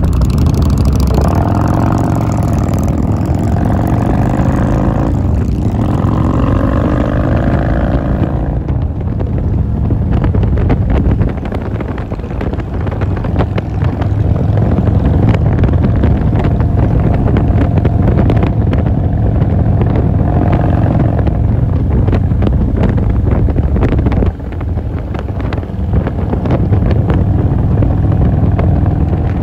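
Touring motorcycle's engine running at road speed, heard from the rider's seat. Its pitch climbs as the bike accelerates over the first several seconds, and it eases off briefly twice, around a third of the way in and near the end. Wind rushes over the microphone.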